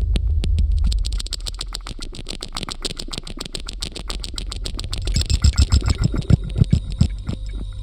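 Experimental electronic music: a fast, even stream of clicks over a steady low hum, joined about five seconds in by a run of deep pulsing thuds.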